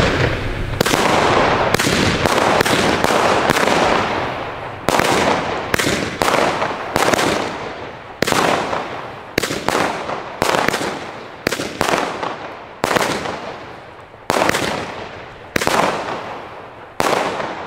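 GBV Weco Red Star 2 consumer firework battery (cake) firing its shots one after another as sharp reports that each fade away. The shots run together for the first four seconds, then come about one to two a second until near the end.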